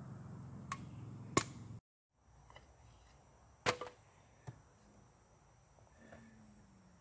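Sharp wooden knocks of a knife being batoned through kindling on a chopping stump. There are two strikes in the first second and a half over a low steady hum. After a brief dropout comes a louder strike with a short ring, and a lighter one about a second later.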